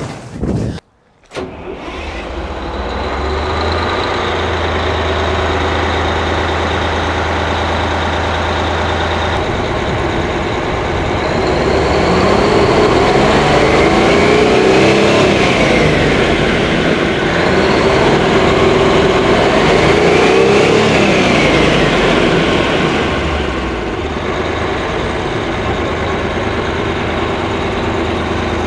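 An 18-litre Detroit Diesel V12 two-stroke engine, twin-turbocharged and supercharged, starts up about two seconds in and settles into a steady run. In the middle it is revved up and back down twice, then drops back to a steady idle.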